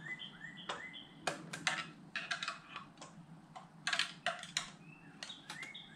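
Irregular light metallic clicks and taps of a pick tool working against the exhaust manifold and its gasket while the gasket is lined up on the studs.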